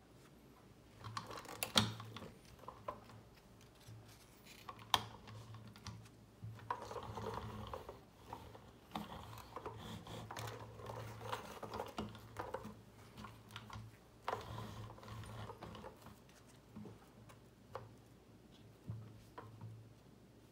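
Handling noise from a die-cast toy semi truck and trailer being picked up, turned and set down on cloth: irregular clicks and taps with stretches of rustling.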